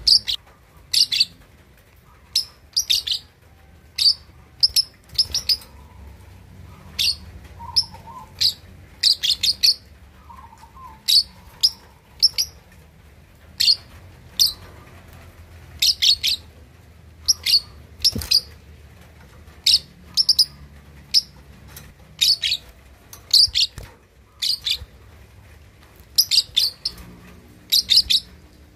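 Young lovebird, about two and a half months old, giving short sharp high chirps in clusters of two or three, roughly one cluster a second: a juvenile still learning the lovebird's chattering 'ngekek' song.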